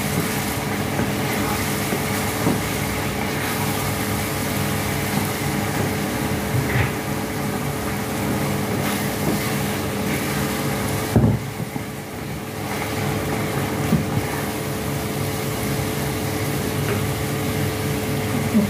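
Food being stirred in a non-stick pan with a wooden spatula: scraping and a few knocks against the pan, over a steady mechanical hum.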